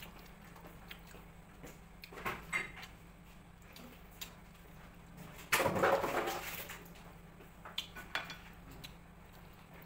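Eating crispy fried beef intestine chicharon: scattered crunching and chewing, with light clicks of fingers picking pieces off a plate. There is a louder stretch of crunching about five and a half seconds in that lasts about a second.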